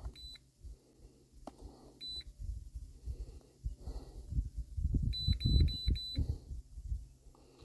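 A handheld OBD-II code reader beeping short and high as its buttons are pressed to clear the stored fault codes: a single beep near the start, another about two seconds in, then four quick beeps past the middle. Low handling rumble runs underneath.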